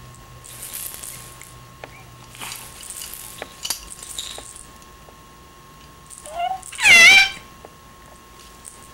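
A baby's short high squeal about seven seconds in, with a smaller one just before it; earlier, faint rustling and light clicks of the plastic hanging toys as he grabs and kicks them.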